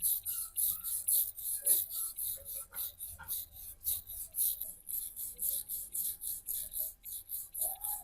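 Rhythmic back-and-forth scraping strokes, about four to five a second, of hand-abrading the rusty hammer's metal.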